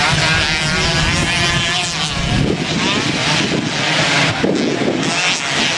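Motocross bike engines revving hard, the pitch climbing and dropping repeatedly as the throttle is worked.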